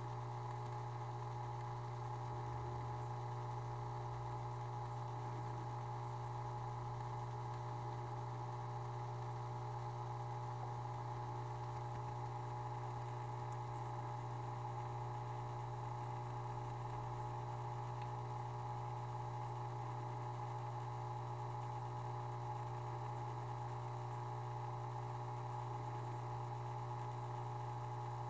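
Aquarium pump running with a steady, unchanging low hum and a fainter higher tone over a light hiss.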